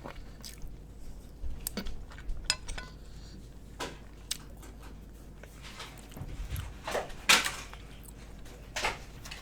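Eating utensils clinking and knocking against dishes and food containers during a meal, a scatter of separate short clicks, the loudest about seven seconds in.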